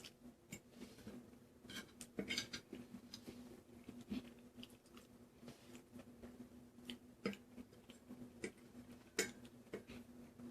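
Quiet sounds of eating penne pasta in red sauce: irregular small clicks and taps of cutlery against a plate, with soft chewing, over a faint steady hum.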